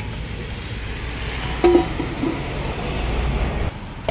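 Steady rumble of street traffic, with a loud ringing clink of steel utensils about one and a half seconds in and a weaker one a moment later. The rumble cuts off suddenly near the end, followed by sharp clicks.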